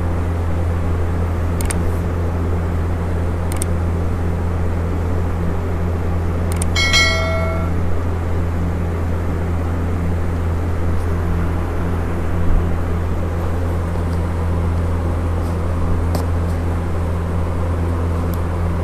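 A steady low hum, with a few faint taps and clicks from a phone box being opened. About seven seconds in there is a short high ringing tone.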